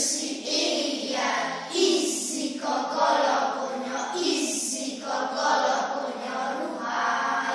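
A group of young boys singing together in unison, in phrases with held notes.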